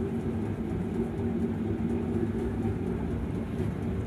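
Steady low mechanical hum and rumble with several held low tones, unchanging throughout.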